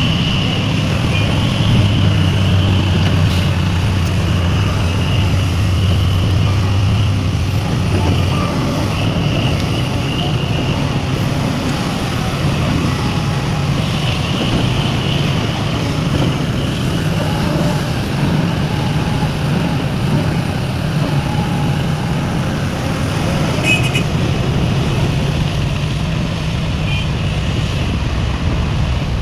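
Heavy diesel engines of a large excavator and a dump truck running steadily during loading. The low engine note shifts up in pitch about eight seconds in, and a high whine comes and goes over it.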